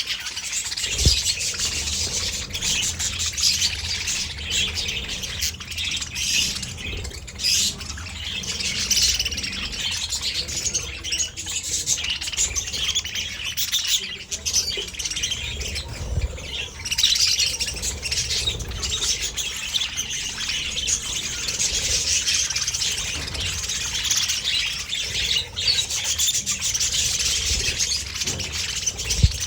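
Budgerigars chirping and chattering in a dense, continuous stream of overlapping calls from several birds, with a brief knock near the end.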